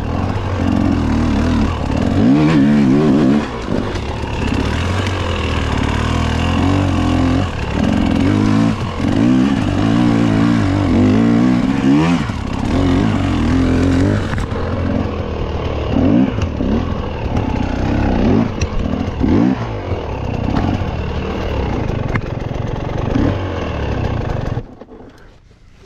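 Mountain bike ridden fast along a trail: steady wind rush on the camera microphone with tyre noise and bike rattle over the terrain. The noise falls away suddenly near the end.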